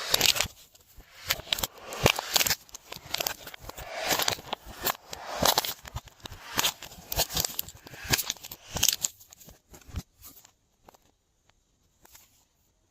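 Glossy slime being worked by hand, making a rapid run of sticky clicks, pops and squishes that stops about ten seconds in.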